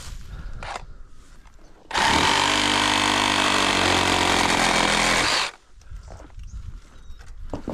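Power saw cutting through a branch of a fallen tree. It runs at a steady pitch for about three and a half seconds, starting about two seconds in and cutting off suddenly.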